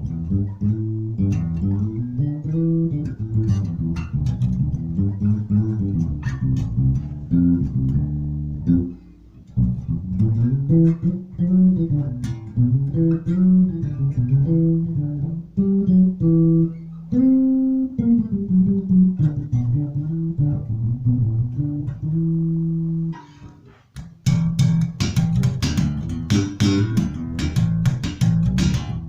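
Maruszczyk Elwood X5 five-string electric bass guitar playing melodic lines. The notes move up and down in the low register, with two short pauses. In the last few seconds the playing turns brighter and clickier, with sharp attacks on every note.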